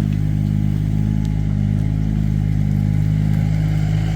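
Excavator's diesel engine running steadily as it digs, a constant low drone.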